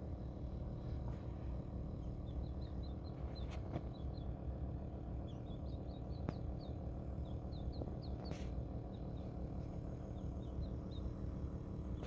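A newly hatched quail chick peeping softly: short, high chirps that fall in pitch, in little runs of two to four, over the steady hum of the incubator, with a few faint clicks.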